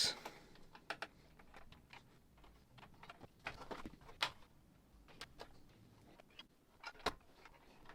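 Irregular light clicks and taps of small plastic connectors and parts being handled as multi-pin wiring plugs are fitted onto a boombox's circuit board, with a short cluster of clicks about halfway through.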